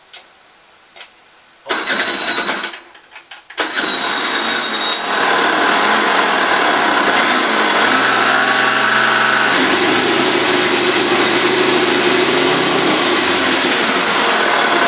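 Small donkey starter engine on the 48-cylinder Kawasaki motorbike starting: a short burst, then it catches about three and a half seconds in and runs loudly and steadily, cranking the big engine. The big engine does not fire because it is flooded with petrol.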